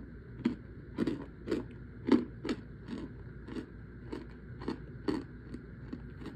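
Chunks of compressed cornstarch being bitten and chewed: dry crunches about twice a second, the loudest in the first half.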